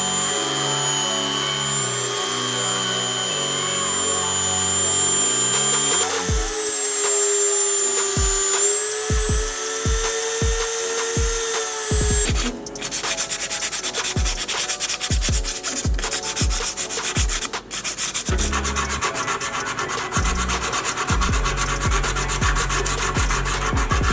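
Sanding and rubbing on small model car parts over background music. A steady high whine runs through the first half; from about halfway in, the sound turns to rapid, dense scraping strokes.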